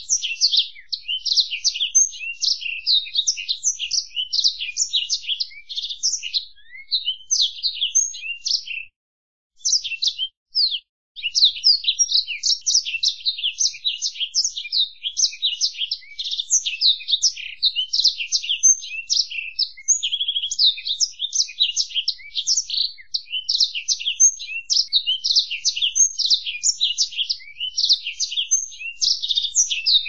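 Black-throated canary (the 'blackthroat' of bird-keeping) singing a long, fast twittering song of high chirps and trills, with a pause of about two seconds around nine seconds in.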